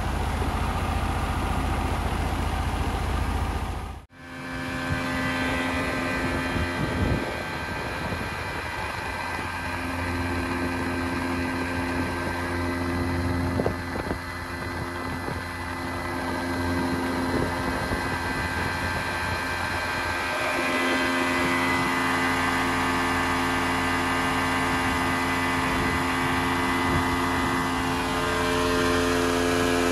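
40 hp three-cylinder Mercury two-stroke outboard running under way with a newly fitted fuel pump, steady and without faltering. The sound drops out briefly about four seconds in, then carries on.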